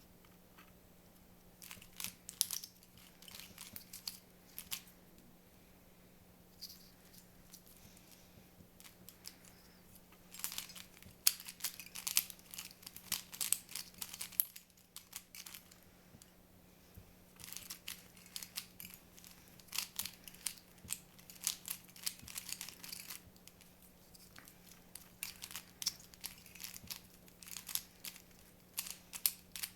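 Mini plastic speed cube being turned rapidly by hand: quick runs of small clicks and clacks as the layers snap round, in bursts of a few seconds with short pauses between. A faint steady low hum sits underneath.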